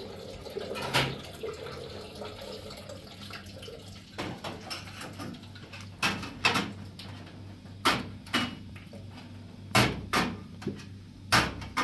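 A tap running into a sink for the first few seconds, then small glass tea glasses clinking against each other and a metal tray as they are washed and set down: about a dozen sharp, separate clinks, irregularly spaced.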